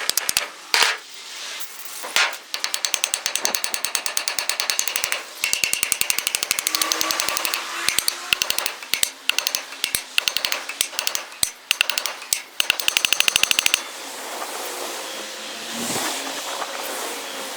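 A power tool hammering in rapid bursts of sharp blows, stopping and starting. About 14 s in, the hammering stops and a steady running noise takes over.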